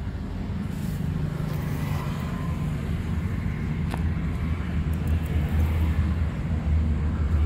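Road traffic: a steady low engine hum from passing vehicles that grows louder towards the end.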